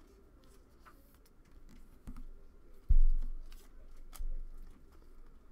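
Trading cards and a clear plastic card sleeve handled by hand: light rustles and small clicks. There is a sudden thump about three seconds in, the loudest sound, and a smaller one about a second later.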